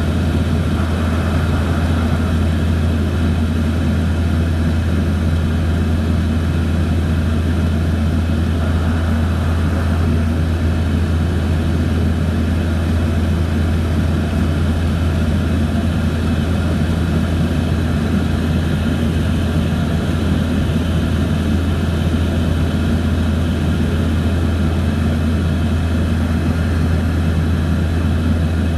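Cabin noise of a small turboprop airliner in flight, heard from inside the cabin: a steady, unchanging low engine and propeller hum with airflow hiss over it.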